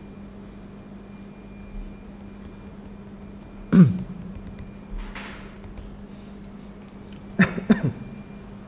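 A man's short throat and breath noises: a loud, brief low grunt falling in pitch about four seconds in, a breathy hiss about a second later, and two quick falling murmurs near the end, over a steady low hum.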